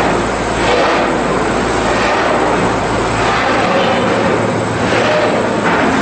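Loud, steady shipyard machinery noise with a faint constant high whine; a low hum drops out about three and a half seconds in.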